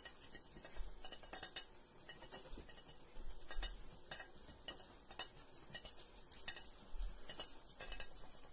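A duck's bill tapping and clicking against a plate as it picks up peas: faint, irregular clicks.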